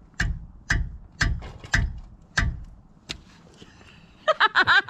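Six light mallet blows, roughly two a second, on a wrench at a car's rear brake caliper, an attempt to break loose a stuck 15 mm caliper bolt. A woman laughs near the end.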